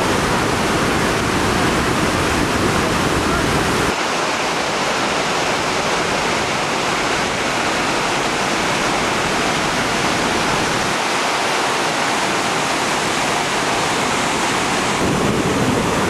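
Vernal Fall's water rushing, a steady dense hiss of falling water and spray. The sound changes abruptly about four seconds in, losing much of its deep rumble, and shifts again near the end.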